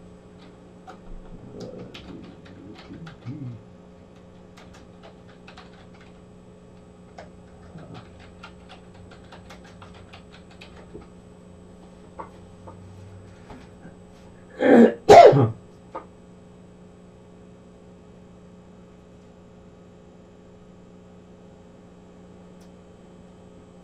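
A man clears his throat in two short bursts about half a second apart, the loudest sound here, over a steady electrical hum. Before it come scattered light clicks from the computer keyboard and mouse as he searches.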